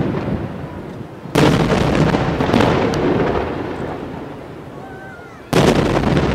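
Chiarappa Fireworks aerial shells bursting: a loud boom about a second and a half in and another near the end. Each is followed by a long rumbling echo that dies away slowly.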